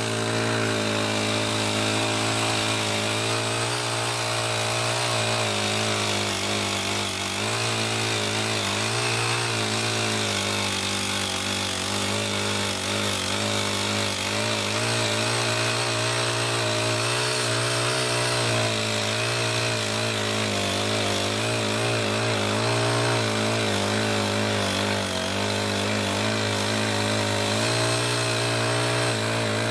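Small single-cylinder four-stroke engine (Honda GX35) of a CY50 folding mini tiller running steadily, its pitch wavering slightly.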